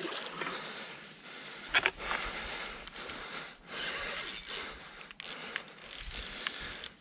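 Fishing reel being worked by hand: its gears rasp and click as the handle turns, with a few sharp clicks, the loudest about two seconds in.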